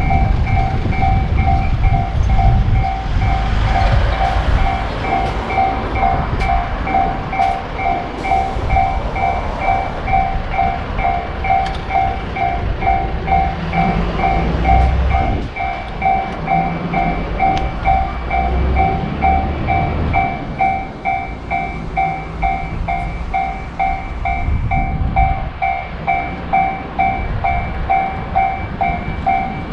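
Japanese railroad-crossing warning bell ringing steadily, about two strikes a second, while a train rumbles past with scattered clicks.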